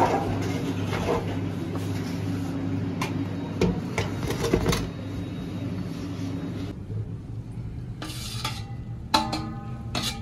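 Kitchen clatter of metal utensils and cookware: a few sharp knocks and clinks over a steady low hum, then near the end a metal clink that rings briefly.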